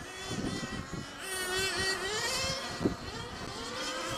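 Several 1/8-scale nitro GT cars' small two-stroke glow engines running on the track, their overlapping pitches rising and falling as they accelerate and brake through the corners. A single sharp knock about three seconds in.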